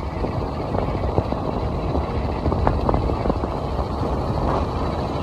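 Wind rumble across a helmet-mounted camera microphone while riding, with a motorcycle engine running steadily underneath, likely the TVS Apache RR310's single-cylinder engine.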